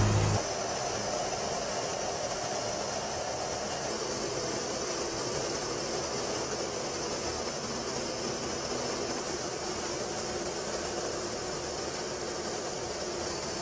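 Jet aircraft engine noise: a steady rushing sound with a thin high whine over it. A louder low hum cuts off about half a second in.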